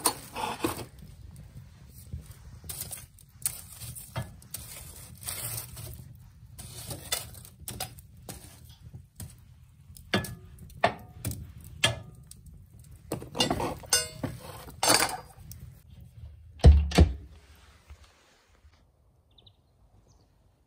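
Objects being handled: a string of clicks, knocks and rustles, with one heavy thump about 17 seconds in, after which it goes quiet.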